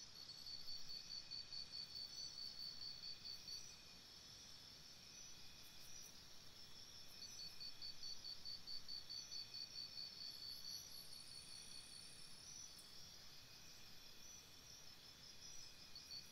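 Faint rainforest insect chorus: a steady high buzzing, with a high cricket-like trill of rapid even pulses that runs for about three and a half seconds at the start, again for about four seconds in the middle, and starts again at the very end.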